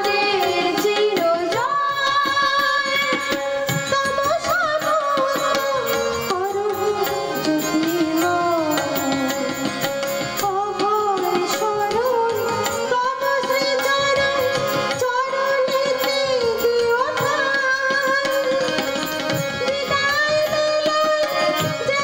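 Woman singing a Bengali devotional song, accompanied by a harmonium's sustained reedy chords and a tabla's steady hand-drum strokes.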